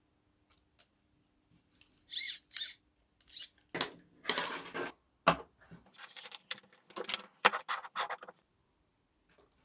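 Small parts and wires being handled during wiring work: a series of short, irregular scrapes, rustles and sharp clicks, starting about two seconds in and stopping shortly before the end.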